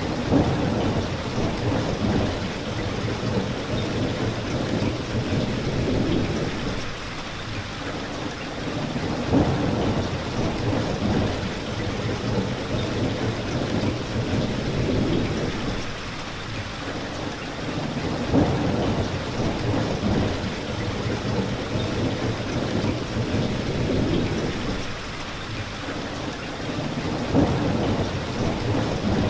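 Thunderstorm: steady rain with low rolling thunder that swells up about every nine seconds, four times in all.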